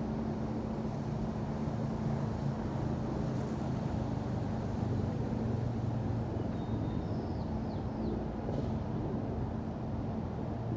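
Steady low rumble of city street traffic with a constant engine hum, and a few faint high chirps about seven seconds in.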